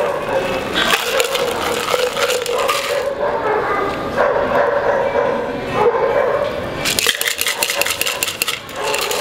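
Ice clinking and rattling inside a metal cocktail shaker as a pisco sour is double-strained from it through a fine mesh strainer into a glass. The clinking is busiest about seven seconds in, and a steady hum runs underneath.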